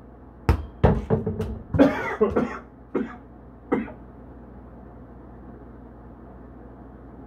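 Volleyball thudding in quick succession against the wall board and the player's arms, with a man's short vocal outburst, tagged as a cough, about two seconds in and two more thuds near the three-second mark; then the ball stops and only a steady low hum is left.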